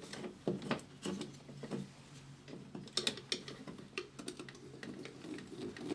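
Irregular small clicks and scrapes of a screwdriver tightening a wire into a terminal screw on the back of a plastic two-way light switch.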